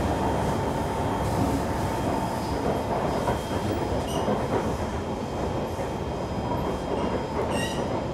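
Kawasaki C151 metro train running, heard from inside the car: a steady rumble of wheels on rail with a constant whine. Brief high squeals come about four seconds in and again near the end.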